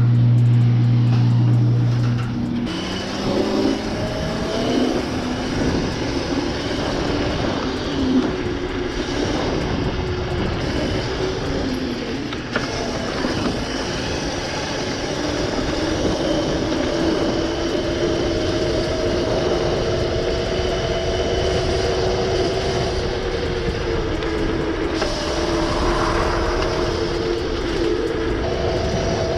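Razor MX500 electric dirt bike, overvolted to 48 volts, being ridden: its electric motor and chain drive whine, climbing in pitch as it speeds up a few seconds in and then holding at speed, over rough tyre and wind noise. A steady low hum is heard before the ride noise begins.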